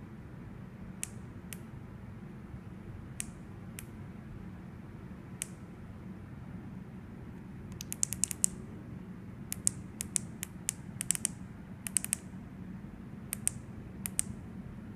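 Light, sharp clicks: a few scattered ones at first, then quick clusters of them in the second half. A low, steady background hum runs underneath.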